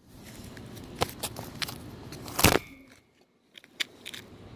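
A cardboard toy camcorder being knocked and crunched, with scattered light knocks and one loud thud about two and a half seconds in.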